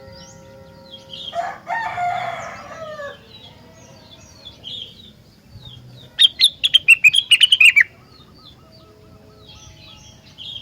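Rengganis songbird singing loudly. A warbling phrase comes about a second in, then a fast run of sharp, falling notes from about six to eight seconds in, over a constant background of small high chirps.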